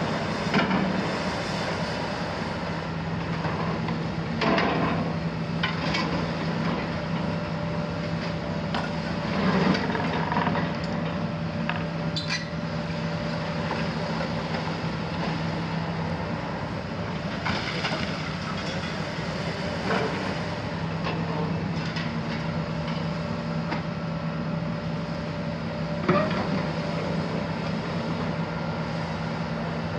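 Hitachi 350 demolition excavator on a Kiesel KMC 400 boom, its six-cylinder Isuzu diesel and hydraulics running with a steady drone and hum. Broken concrete clanks and crashes at irregular intervals as the grab works the rubble.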